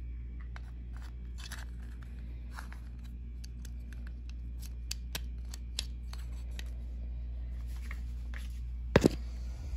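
Light plastic clicks and taps as a Traxxas power switch and its plastic switch cover are handled and fitted together, with two sharp snaps close together about nine seconds in.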